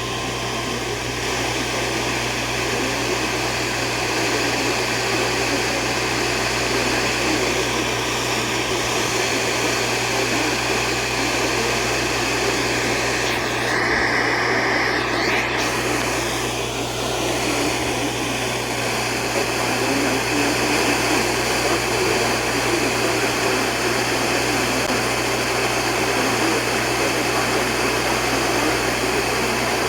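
Steady static hiss with a low electrical hum from a radio receiver on dead air between broadcast messages, with a short higher-pitched whine about halfway through.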